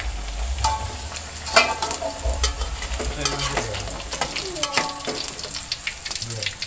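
Tempe deep-frying in hot oil in a wok, sizzling, while a metal spatula and a wire strainer scrape and clink irregularly against the wok as the pieces are stirred and lifted out.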